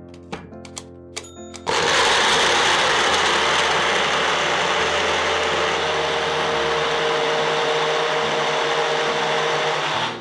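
A few light clicks, then an electric blender switches on and runs steadily for about eight seconds, blending chopped beetroot, ginger, tulsi and lemon with water into juice. It stops abruptly near the end. Quiet background music plays throughout.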